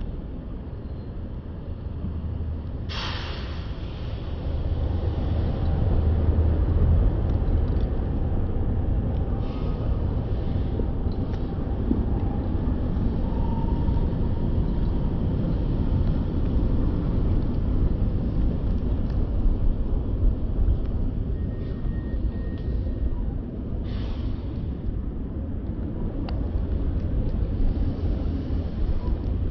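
City street traffic: cars and other vehicles passing through a wide intersection as a steady low rumble, with a short sharp hiss about three seconds in and another a few seconds before the end.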